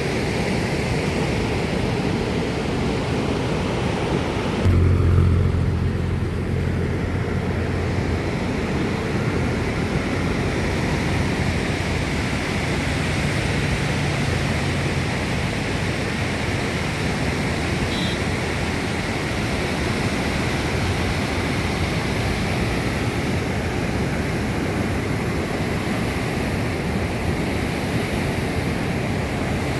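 Steady rushing of water pouring through the sixteen spillway gates of Mettur Dam. A low rumble swells for a couple of seconds about five seconds in.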